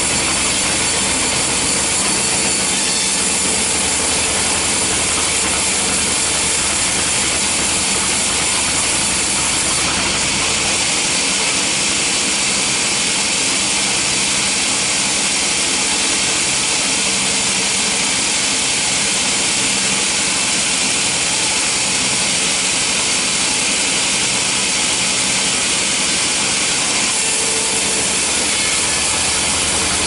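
Vertical band sawmill's blade cutting lengthwise through a meranti log: a loud, steady, high hiss over the machine's running, with a low hum underneath that fades about ten seconds in.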